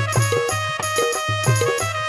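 Instrumental passage of Rajasthani folk-devotional bhajan music: a sustained keyboard melody over dholak drum strokes, about two beats a second.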